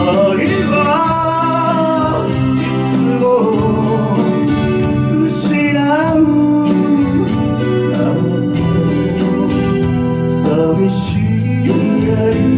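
A small live band playing a ballad: a man singing into a microphone over acoustic guitar, electric bass and electric guitar, with a steady rhythm.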